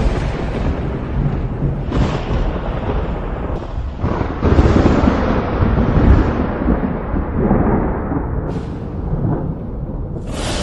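Thunder rolling and rumbling, with sharp cracks several times and the heaviest rumble about halfway through.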